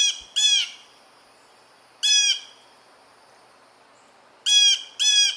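Blue jay calling: five short, loud calls, a pair at first, a single one about two seconds in, and another pair near the end.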